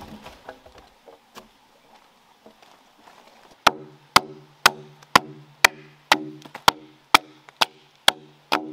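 Chopping a notch into a freshly felled log with a hand blade: even strokes about two a second, starting a little under four seconds in, each followed by a short ringing tone from the wood.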